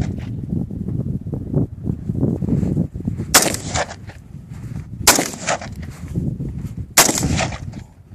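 Colt AR-15 rifle fired in slow single shots: three sharp cracks, each ringing out briefly, about two seconds apart.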